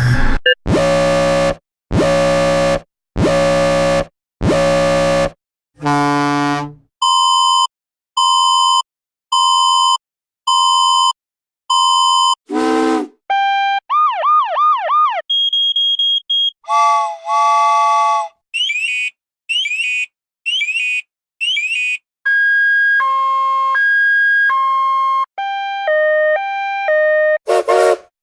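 A run of synthesized electronic alert and prompt tones. It opens with four long buzzer blasts, then a falling tone and five short even beeps. Warbling and sweeping chirps follow, then short stepped note sequences like notification chimes.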